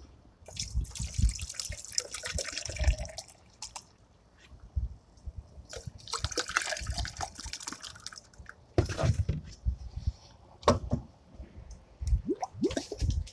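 White vinegar poured from a plastic gallon jug into a muffler's inlet pipe, splashing and glugging in two longer pours with shorter glugs and splashes near the end.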